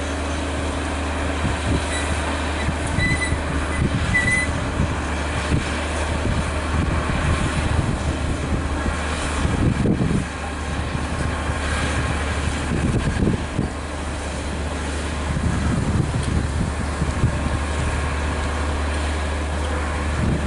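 Heavy construction machinery running, a steady low engine drone under a mechanical clatter, with a few short high metallic squeals a few seconds in.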